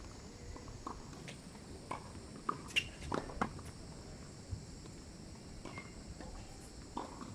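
Scattered short knocks and scuffs, the loudest few coming about two and a half to three and a half seconds in, over a low rumble of strong wind on the microphone.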